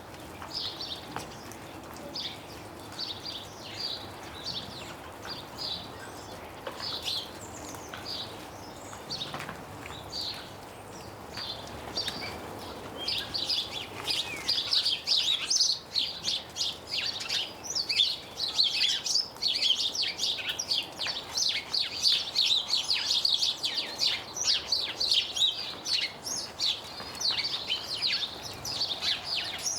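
Small garden birds chirping and singing close to the microphone in a tree: short high chirps, sparse at first, thickening into a dense, busy chorus about halfway through. Snow melting off the branches drips with faint ticks.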